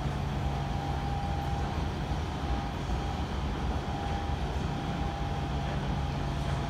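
Steady ventilation noise of a large air-conditioned hall: an even rush with a constant low hum and a fainter higher tone, unchanging throughout.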